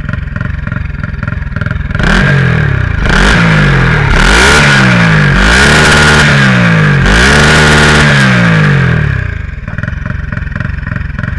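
Turbocharged Honda Titan 160 single-cylinder motorcycle engine idling, then revved up and let back several times in quick succession, with a steady high whine riding over the revs, before settling back to idle. No turbo flutter is heard as the throttle closes: the downpipe set-up has failed to produce it.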